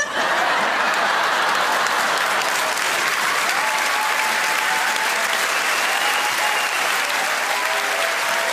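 A large theatre audience applauding, breaking out all at once and holding loud and steady.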